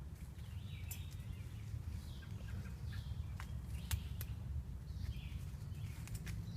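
Footsteps on a woodland trail with a few sharp twig snaps, birds chirping now and then, over a steady low rumble.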